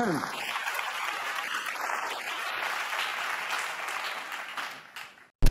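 Studio audience applauding, dying away near the end, then a sudden loud thump right at the end.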